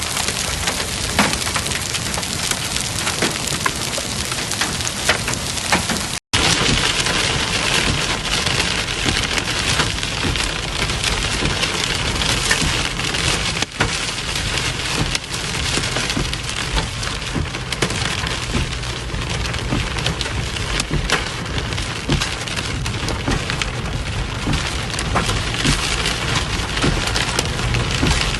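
Heavy rain falling steadily, a dense wash of noise full of the patter of drops striking hard surfaces, with a brief cut-out about six seconds in.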